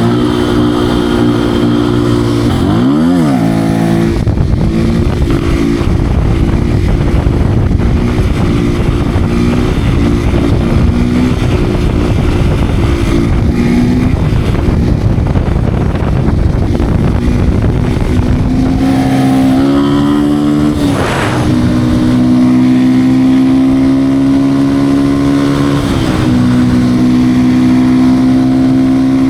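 Beta RR 125 R motorcycle's 125 cc single-cylinder engine running under way, with a loud rushing noise over it through much of the middle. There are short sweeps in pitch twice. In the last several seconds the engine note holds steady and climbs slowly.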